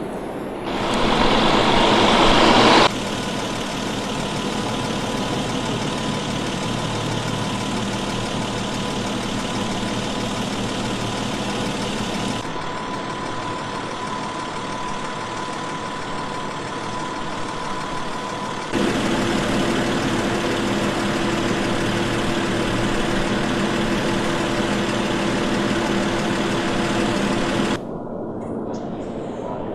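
Steady engine noise, in several stretches joined by abrupt cuts, the loudest lasting about two seconds near the start.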